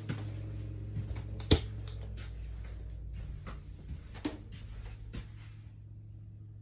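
A steady low hum with scattered light clicks and knocks, the sharpest a single knock about a second and a half in.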